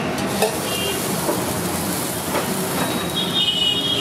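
Steady traffic noise from the road, with a high-pitched squeal starting about three seconds in.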